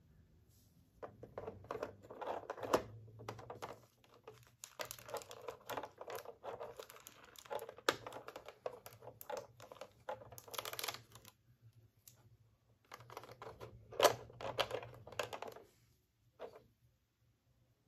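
Clear plastic blister tray of a Nendoroid figure crinkling and clicking as small parts are pried out of it and handled, in several bursts with short pauses between them.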